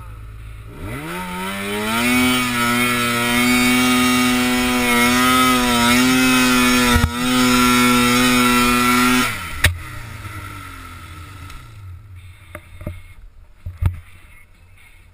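Snowmobile engine revving up and held at high revs as the sled ploughs through deep powder, with a brief dip about seven seconds in. The throttle then cuts off abruptly and the engine falls away, followed by a sharp click and a few scattered knocks as the sled tips over in a slow crash.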